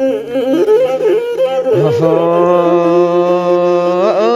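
Raya-style song: a sung melodic line over instrumental backing, then a long held note with a steady low drone beneath it from about two seconds in, breaking off just before the end.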